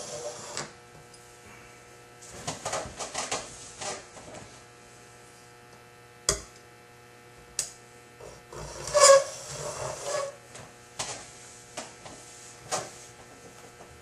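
A metal layout bar and marking point scraping, tapping and clicking on a sheet of galvanized sheet metal as a line is marked out. Irregular sharp clicks and short scrapes, the loudest scrape about nine seconds in, over a steady electrical hum.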